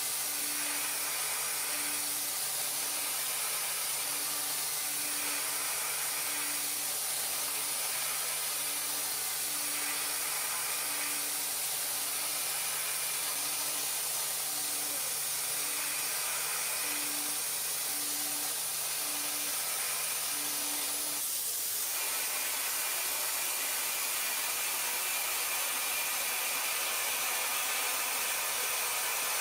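CNC machining centre running with a steady high hiss. A low hum and a low tone pulsing about once a second run under it, and both stop about 21 seconds in while the hiss carries on.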